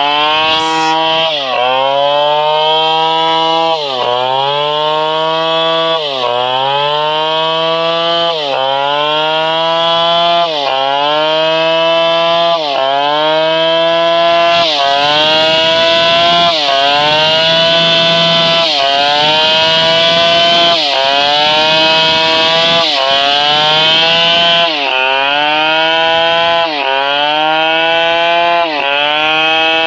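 Large Stihl 720 chainsaw engine running hard while cutting wood. About every two seconds its pitch drops suddenly as it takes the load, then climbs back.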